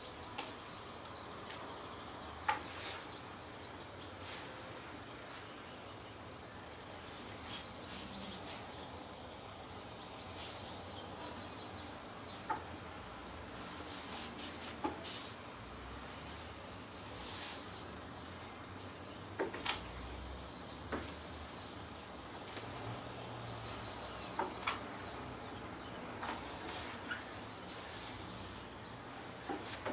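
Outdoor ambience: a steady background hush with distant birds chirping, and a few short soft clicks and knocks scattered through it.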